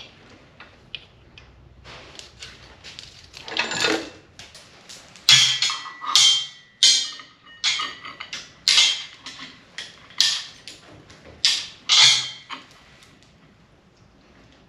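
Steel roller chain clattering and clinking as it is handled and fitted over a sprocket: a run of about ten sharp, uneven metallic rattles, after a few seconds of softer clicks.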